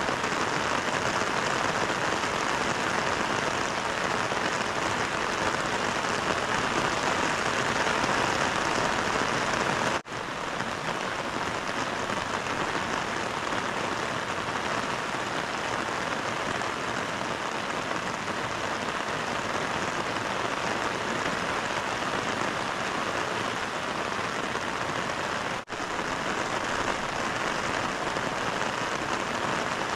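Heavy rain falling steadily on a tent and the grass around it, an even hiss with two brief drops in level, about ten seconds in and again near twenty-six seconds.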